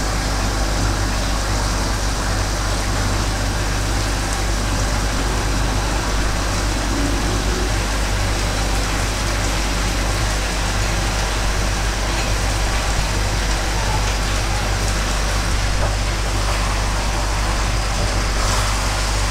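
Pot of tomato stew with mackerel and plantain boiling on the stove: a steady hiss of simmering and steam over a constant low hum.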